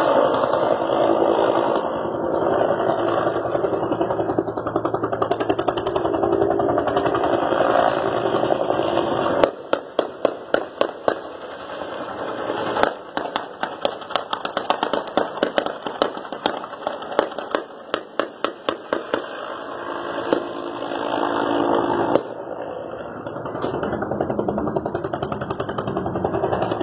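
Low-flying helicopter running steadily, with a long spell of rifle fire from about ten to nineteen seconds in: dozens of sharp shots, some single and some in quick strings. The steady helicopter noise comes back clearly after the shooting stops.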